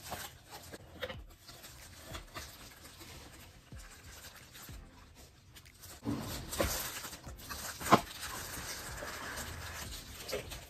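Clear plastic wrap crinkling and rustling as a hair straightener is handled and pulled out of it, getting louder about six seconds in, with a sharp click or snap near the eight-second mark.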